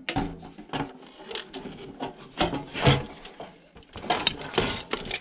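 A Yamaha DVD player's casing being opened up by hand: scraping and rubbing with scattered clicks and knocks, the sharpest a little over two seconds in and again near three seconds.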